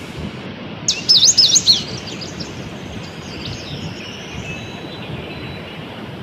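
A bird calling outdoors: a quick run of high, swooping chirps about a second in, then a few fainter chirps, over a steady background hiss.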